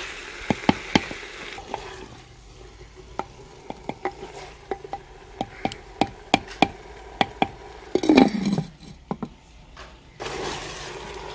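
Wooden ladle stirring potatoes and aubergine frying in a clay pot, knocking and scraping against the clay with many sharp clicks over a faint sizzle. About eight seconds in, the clay lid goes onto the pot with a brief scrape that falls in pitch.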